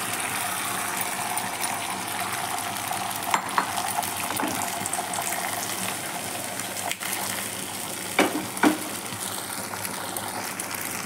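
Beaten egg sizzling steadily in hot oil in a nonstick frying pan as an omelette sets. A few sharp clicks break in, two of them close together about three-quarters of the way through.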